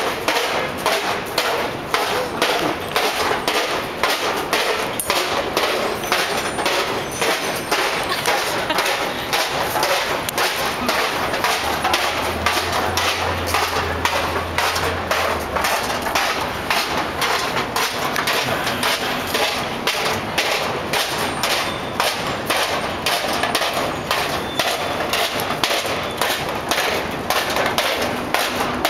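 Rapid, steady thumps and knocks from walking, several a second without a break, along with the rattle of a robot costume made of silver metal ducting. A faint low hum joins in for a few seconds near the middle.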